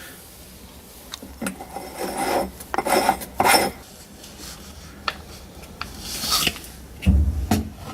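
Agitator parts of a Kenmore Elite washing machine being fitted back on by hand: irregular scraping and rubbing with small knocks, and a dull thump about seven seconds in.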